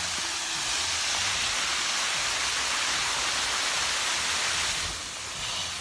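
Waterfall rushing: a steady hiss of falling water that eases off a little about five seconds in.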